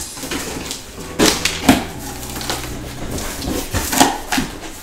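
Cardboard flaps of a large TV carton being pulled open and folded back: an irregular run of scrapes, rustles and knocks, the sharpest about a second in, again just after, and near four seconds.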